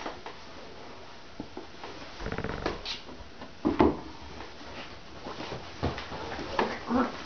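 Handling and movement noises of someone making a bed and climbing onto it, with a loud thump just before four seconds in and a few shorter sounds near the end.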